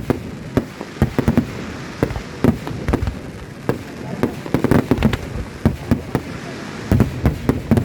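Fireworks display: many sharp bangs and reports from bursting pyrotechnics in irregular, rapid succession, coming thickest about halfway through and again near the end.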